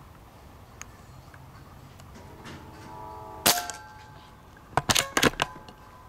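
Distant train horn sounding a held chord of several steady tones from about two seconds in. A sharp crack about halfway through, then a quick run of three or four loud clicks a second later.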